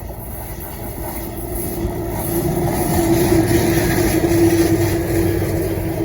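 VL10 electric locomotive hauling a passenger train as it approaches: wheel-on-rail rumble builds to a peak about four and a half seconds in, with a steady hum from the locomotive coming in about two seconds in.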